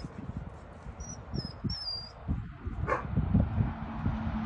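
A dog barks once about three seconds in, over a low rumble of wind on the microphone and a few high chirps; a passing truck's low engine drone comes in near the end.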